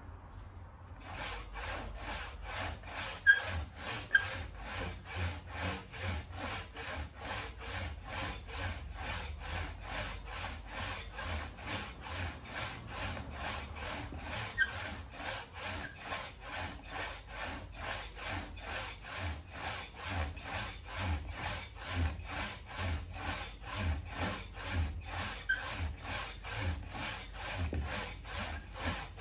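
Hand saw cutting through a tree branch with a steady back-and-forth rhythm of about two strokes a second, starting about a second in. Two sharp clicks about three and four seconds in.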